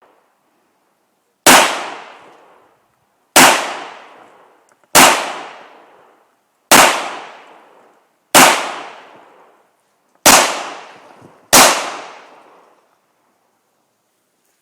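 Seven gunshots fired one after another, about one every one and a half to two seconds, each ringing out and fading over about a second.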